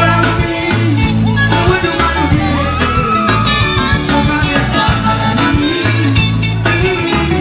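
Live band music: a male singer singing into a microphone over bass, drums and electric guitar.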